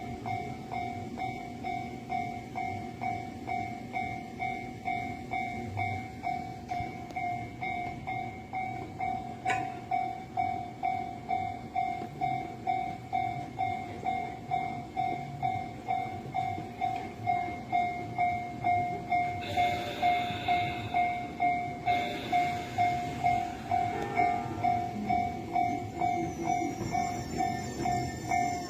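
Japanese railway level-crossing warning bell ringing on and on, an even electronic clang at about two strikes a second that grows louder in the second half. A train runs past partway through, its rushing noise under the bell.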